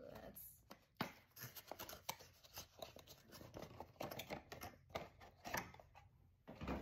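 Clear plastic wrapping crinkling and crackling as it is pulled off a small cardboard box, with irregular ticks and rustles of the packaging being handled.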